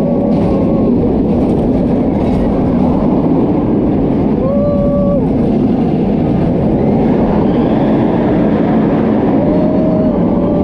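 Kumba, a B&M steel looping roller coaster, heard from a rider's seat: the train runs loud and steady along the track, with wind rushing over the microphone. Three brief steady high tones sound, one at the start, one about halfway and one near the end.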